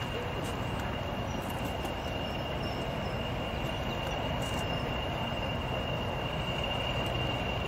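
BR Class 40 diesel-electric locomotive with its English Electric 16-cylinder diesel engine running as it draws a train slowly into a station, a steady low rumble under a steady high whistle, the turbocharger whistle that gave the class its nickname 'Whistlers'. It grows slightly louder near the end as the locomotive comes closer.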